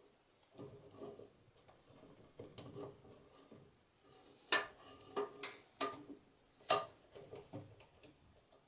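Faint rustling and small, sharp clicks of wires being handled and fed into screw terminals on a breakout board, with a few louder ticks about halfway through.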